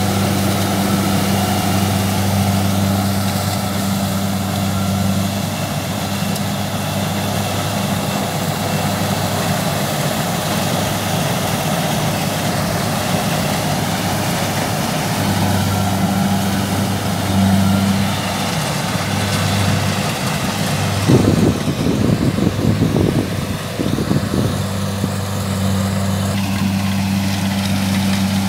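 Kubota rice combine harvester's diesel engine running steadily under load as the machine cuts and threshes rice, a constant drone. About three quarters of the way through, a few seconds of rough, irregular low rumbling break over the drone.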